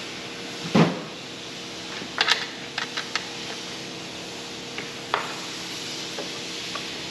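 Plastic body panels and their fasteners being worked loose: a loud knock about a second in, a quick run of sharp clicks and clacks around two to three seconds, and another click a little after five seconds.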